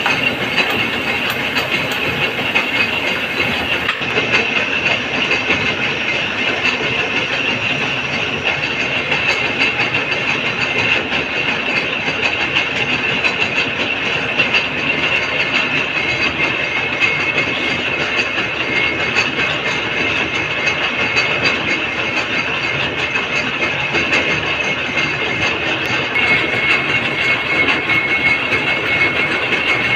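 Gear cutting machine running steadily with a dense, rapid mechanical clatter. A faint steady whine comes in near the end.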